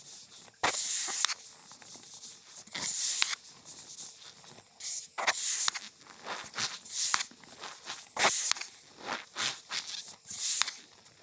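Cornstarch powder being squeezed and pressed by hand, giving repeated squeaky crunching bursts about every two seconds, with fainter crunches in between.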